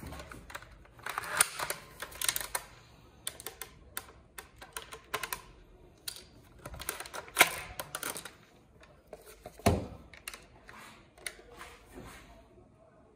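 Plastic toy sniper rifle being handled and loaded with a BB: an irregular run of plastic clicks, rattles and knocks, with a heavier thump about ten seconds in.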